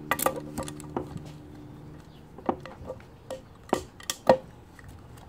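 Irregular sharp metallic clicks and taps from handling the valve springs, retainers and keepers on a Chrysler 225 slant six cast-iron cylinder head, about a dozen strikes with the loudest a little past four seconds in.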